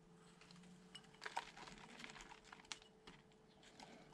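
Near silence: a few faint, light clicks and taps from hands handling a plastic seed-cell tray and scooping potting mix, over a faint steady hum.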